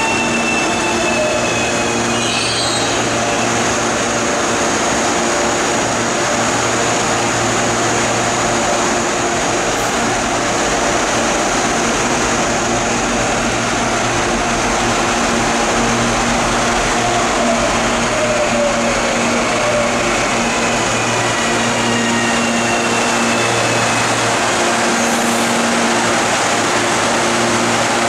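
A CPTM Série 8500 electric commuter train pulls into the platform and brakes to a stop, with a whine that falls in pitch as it slows. A steady low electrical hum from the trains runs underneath.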